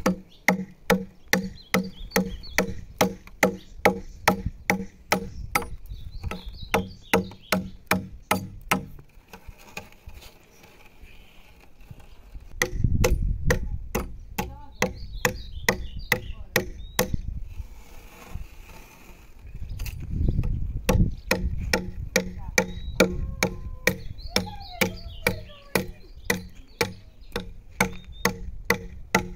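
Hand adze chopping into the end of a freshly hewn wooden ox-cart axle, shaping it where it fits the wheel. Steady sharp blows come about two or three a second, with short pauses about nine seconds in and again near eighteen seconds.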